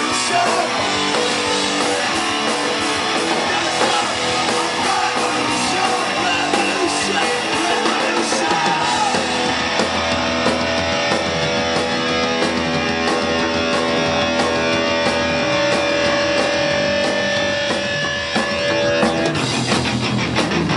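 Loud rock band playing, with distorted electric guitar and drums. A long note is held through the second half, then the song moves into a sharper, more rhythmic passage near the end.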